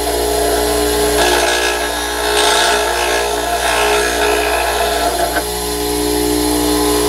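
Bench grinder running steadily while the end of an end mill, held in a sliding fixture, is ground against the wheel in a few short scraping passes. The grinding stops about five and a half seconds in, leaving only the grinder's steady hum.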